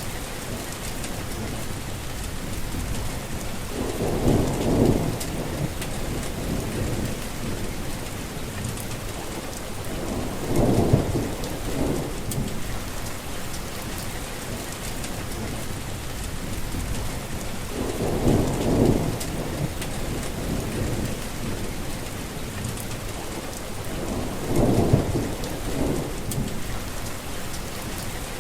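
Heavy rain falling steadily, with four brief low rumbles about seven seconds apart.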